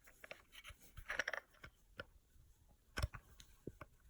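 Small clicks, taps and scrapes of hands working at a plastic shower head part, with a scratchy scraping about a second in and a louder knock about three seconds in, as the water restrictor is pried out of the shower head.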